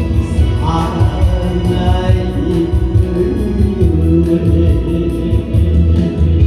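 Music with singing over a steady beat and heavy bass.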